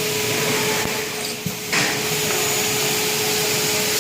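Turkish-made CNC machine running while it machines Xingfa aluminium profile: a steady hum with a high hiss. It dips briefly about a second and a half in, then comes back sharply.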